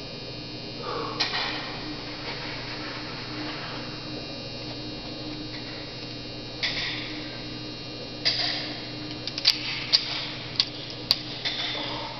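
Steady low hum, with a few brief rustles and then a run of sharp clicks and knocks in the last few seconds.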